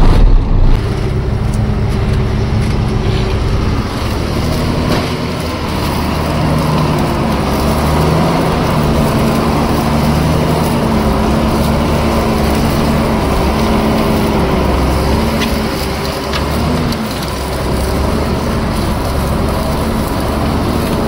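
Diesel engine of a loaded goods truck running as the truck drives slowly across a bumpy harvested field. Its pitch rises and falls with the throttle.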